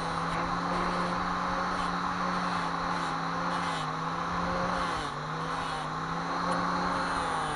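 A small electric motor running steadily with a hum and whir, its pitch sagging briefly about five seconds in and again near the end as it is loaded.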